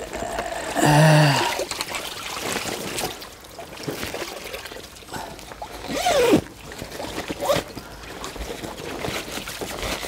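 Shallow water sloshing and trickling among weeds at the pond's edge, stirred by a released crucian carp swimming off. A short voiced exclamation comes about a second in and is the loudest sound, and a falling cry follows around six seconds in.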